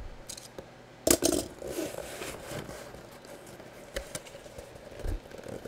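A cardboard box being handled and opened: a few sharp knocks and scrapes of cardboard with some rustling, the loudest knock about a second in.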